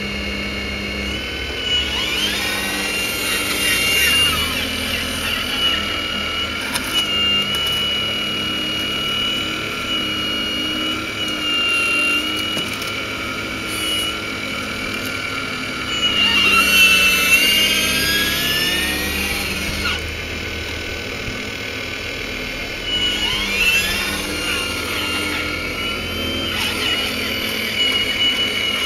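Radio-controlled hydraulic model Hitachi excavator at work digging: a steady high whine from its pump and drives that shifts in pitch, with sweeping rises and falls as the boom and bucket move. The sweeps are loudest about sixteen seconds in.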